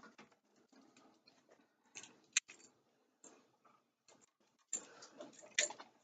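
Faint, scattered small clicks and ticks of needle-nose pliers handling electrical wire, with one sharper click about two and a half seconds in and a few more near the end.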